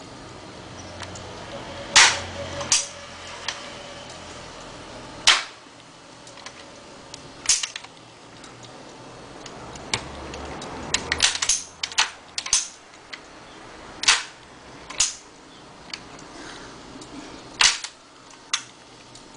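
Cutaway motorcycle engine demonstration model with its gearbox gears exposed, giving about a dozen sharp, irregularly spaced clicks and clunks over a faint low hum.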